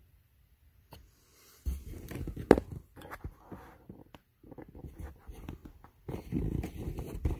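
Handling noise: low rustling rumbles broken by clicks and knocks, with one sharp knock about two and a half seconds in. A second rumbling stretch comes near the end.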